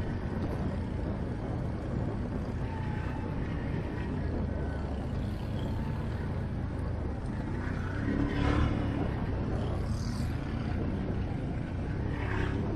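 ATV engine running steadily under way, with a brief louder surge about two-thirds of the way through.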